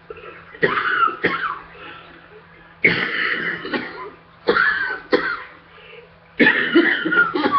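A woman coughing hard and repeatedly after running on a treadmill. The coughs come in about six sharp bouts one to two seconds apart, some drawn out into a longer hacking fit.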